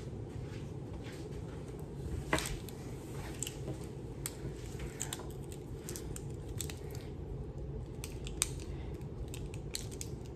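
Scattered light clicks and taps of small objects being handled at close range, over a steady low hum.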